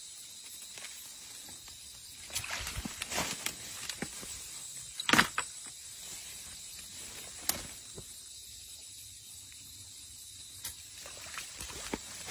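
Scattered rustles and short knocks from a stick and hands working through grass and mud at the edge of a ditch, over a steady hiss. The loudest knock comes about five seconds in, with smaller ones clustered before it and a few near the end.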